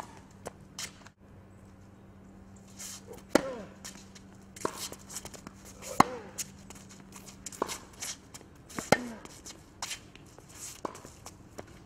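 Tennis rally on a hard court: sharp pops of racket strings hitting the ball and the ball bouncing, starting about three seconds in and coming every second and a half or so, loudest when the near player strikes the ball.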